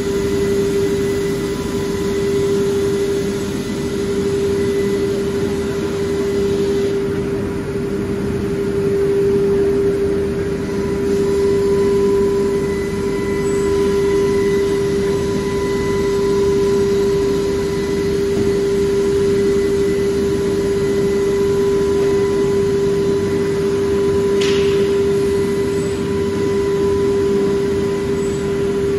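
CNC wood router production line running: a steady machine hum with one strong high tone over constant noise, and a single short tick about 24 seconds in.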